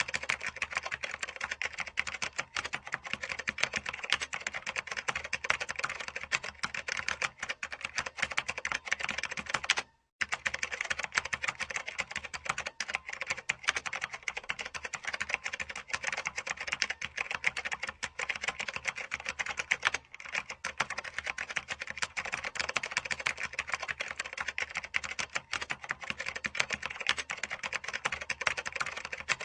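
Computer keyboard keys typed on fast and without pause, a dense run of clicks, with a brief break about ten seconds in.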